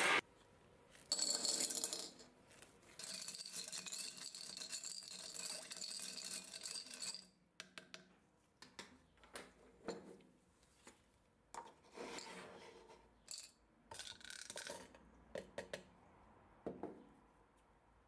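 Small steel screws and bolts rattling and clinking in a plastic strainer and cup, being handled during cold bluing. A sustained rattle runs for a few seconds early on, then scattered clicks and light knocks follow.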